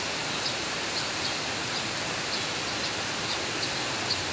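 Steady background hiss of workshop ambience, with short, faint, high chirps repeating irregularly, two or three a second.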